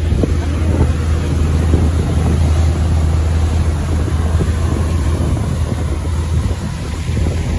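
Motor yacht running at speed: a steady low rumble from its engines, with rushing water from the churning wake.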